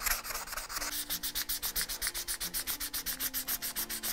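English oak screwdriver handle rubbed rapidly back and forth on a sheet of sandpaper, an even run of scratchy strokes at about eight a second, smoothing the wooden scales.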